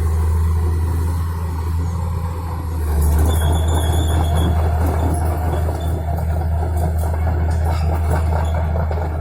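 Komatsu PC200 excavator's diesel engine running steadily under load with the hydraulics working. It gets louder about three seconds in, with a brief high metallic squeal and scattered clanks.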